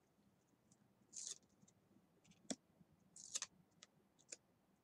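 Faint clicks and soft brushing slides of new, still-sticky oracle cards being separated one by one and laid onto a pile. A short slide comes about a second in, a click halfway, a slightly louder slide a little later, and a couple of light ticks near the end.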